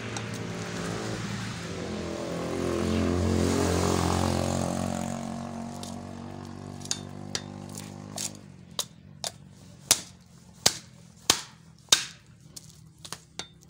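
An engine runs with a steady hum, swelling a few seconds in and cutting off about eight seconds in. Then a heavy cleaver strikes the fish and wooden chopping block in sharp chops, about two a second.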